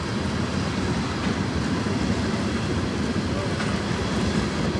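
Freight train of tank cars and covered hopper cars rolling past at speed, a steady rumble of steel wheels on the rails.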